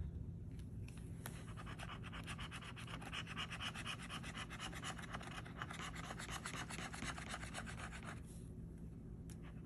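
Scratch-off lottery ticket being scratched with a bottle-opener-shaped scratcher tool: a fast, even run of rasping strokes that scrapes off the coating over the winning numbers, stopping about a second and a half before the end.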